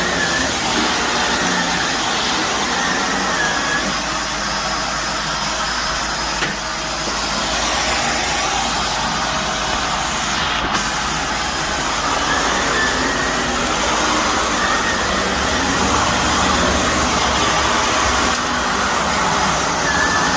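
Shark vacuum cleaner running steadily as it is pushed over a carpet, sucking up dry soil and debris with a crunching sound.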